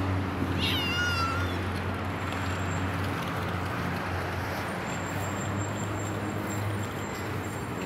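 Steady street traffic noise with a low hum. About a second in, a single short high-pitched call falls in pitch.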